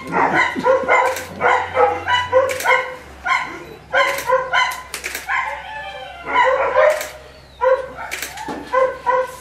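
A puppy yelping and whimpering over and over, in short high cries about twice a second, as it is microchipped with an implanter needle pushed under the skin of its neck.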